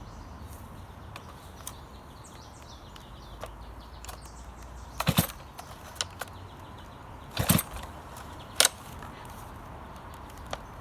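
Stihl MS 462 chainsaw's recoil starter cord pulled twice, about five and seven and a half seconds in, the cold engine turning over briefly without catching. A sharp click follows about a second after the second pull.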